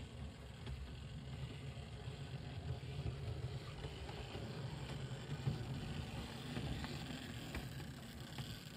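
00 gauge model steam locomotive and van running along the track: the motor's hum and the wheels rumbling on the rails, with light clicks, growing louder as it draws close and easing off near the end.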